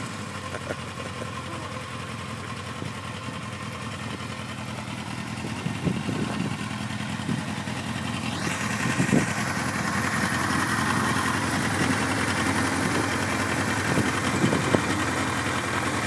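Kawasaki KZ1000P police motorcycle's air-cooled inline-four engine idling steadily, with a few short throttle blips about six, nine and fifteen seconds in. It grows somewhat louder in the second half.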